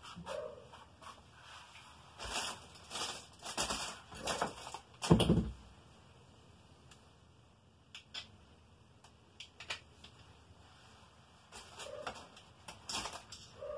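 A clear plastic parts bag crinkling as small parts are handled on a workbench, in several bursts. There is a thump about five seconds in, then a few light clicks, and more crinkling near the end.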